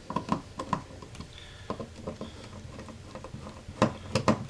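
Hand screwdriver driving a duplex receptacle's mounting screw into the electrical box: a scatter of small clicks and scrapes, several in the first second and a few more near the end.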